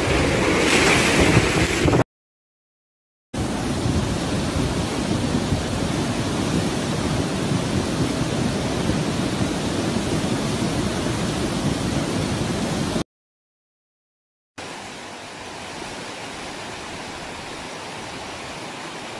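Hurricane wind gusting, which cuts off suddenly about two seconds in. After a moment of silence comes a steady rush of flooded river water for about ten seconds. After another short silence comes a quieter, steady rush of floodwater running down a street.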